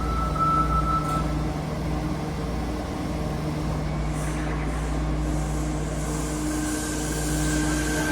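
Fukuoka City Subway 3000-series linear-motor train at the platform, its electrical equipment humming steadily over a low rumble, with a brief hiss about four seconds in. Near the end a new, slightly rising tone sets in as the train starts to pull away.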